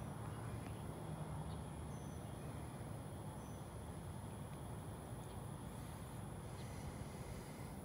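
Outdoor evening ambience: a steady low rumble, with a thin steady high-pitched whine and a few brief faint chirps.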